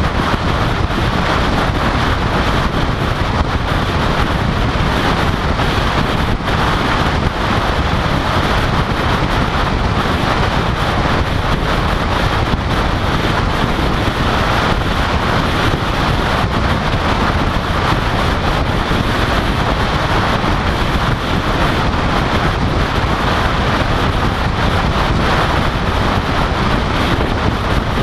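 Steady wind rush buffeting the microphone of a camera mounted on the outside of a car, over the tyre and road noise of the car driving at highway speed.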